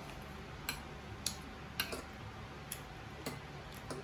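Spoon and fork clicking and scraping against a ceramic plate while food is scooped, about six sharp clinks spaced irregularly over a low steady hum.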